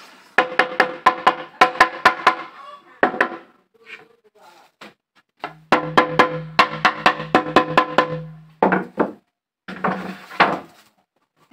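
Percussive music with rapid wood-block-like clicks and drum beats, about four a second, in short runs with sudden full stops between them.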